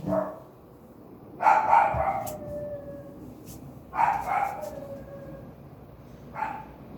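A dog crying in distress, four cries in all. The two loudest, in the middle, draw out and trail off falling in pitch.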